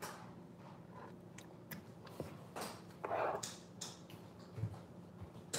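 Someone biting and chewing a mouthful of food, with scattered crunchy clicks and short rustling noises, and a couple of low knocks near the end as she moves. A faint steady hum runs underneath.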